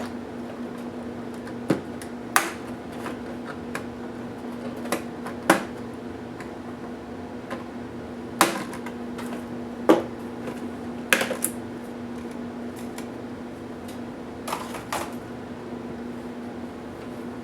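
Sharp clicks and light knocks of a Toshiba P755 laptop's plastic case parts and small tools being handled during disassembly, about nine spread irregularly over a steady low hum.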